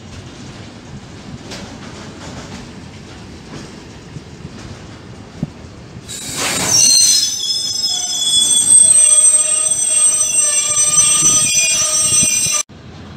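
Container freight train wagons rolling past on steel wheels with a steady rumble and light clicking over the rail joints. About six seconds in, a loud high-pitched metallic squeal from the passing wagons' running gear sets in, made of several shrill tones at once, and it cuts off suddenly near the end.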